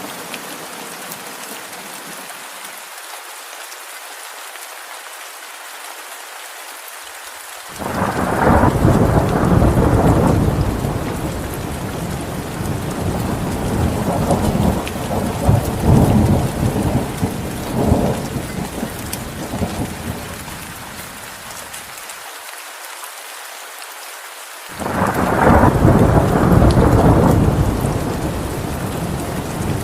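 Rain falling steadily, with thunder: a sudden peal about a quarter of the way in rumbles on for over ten seconds, and a second peal breaks in near the end.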